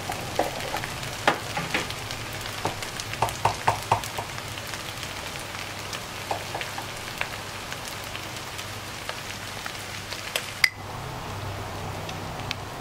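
Diced pork and candied winter melon filling sizzling as it is stir-fried in a granite-coated nonstick pan, with a spatula clicking and scraping against the pan. Near the end there is one sharp click and the sizzle turns quieter.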